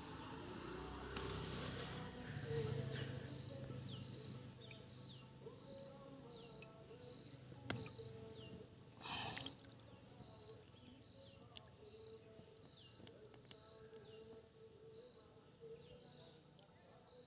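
Faint outdoor insect chorus: a steady high drone like crickets, with a short chirp repeating about every three-quarters of a second. A sharp click about eight seconds in and a brief rustling burst about a second later.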